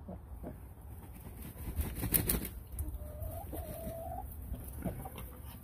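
Chicken vocalising: a drawn-out, slightly rising two-part call about three seconds in, with scattered clucks, and a brief louder scuffle about two seconds in.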